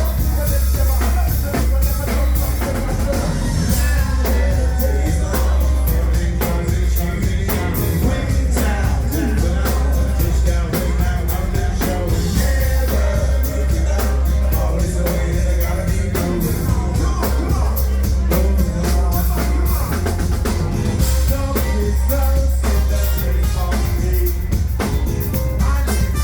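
Live band playing a song: a heavy, steady bass line and a driving drum kit under singing.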